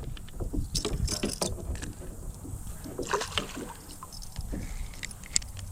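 Scattered light knocks, clicks and small water sounds of handling in a fishing kayak, over a low steady rumble of wind on the microphone.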